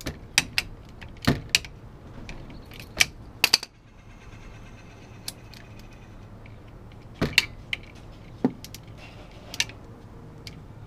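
Irregular sharp metallic clicks and clinks of a wrench working a bolt at the front brake caliper of a 1997 Honda Civic EX as the bolt is tightened from behind.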